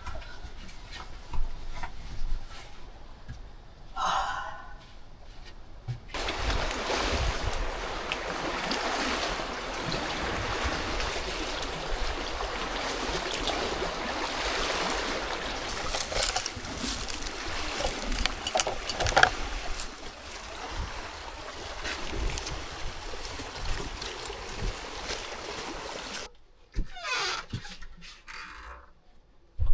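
Water rushing and splashing as one dense, steady wash, starting about six seconds in and cutting off suddenly near the end.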